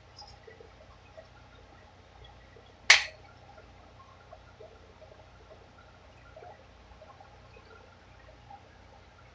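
Stir-fried vegetables faintly sizzling and crackling in a frying pan as they are stirred, with one sharp clink of the stirring utensil against the pan about three seconds in.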